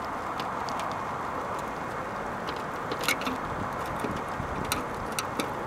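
A few small sharp plastic clicks as the tabs of a new Mercedes star trunk emblem are pressed into the trunk lid's plastic grommets. A steady background hiss runs under them.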